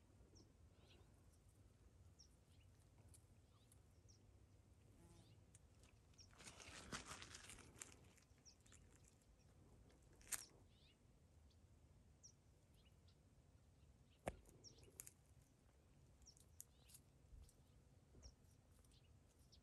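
Near silence: faint outdoor ambience with short, high bird chirps now and then, a brief rustle about six to eight seconds in, and two sharp clicks, one around ten seconds and one around fourteen.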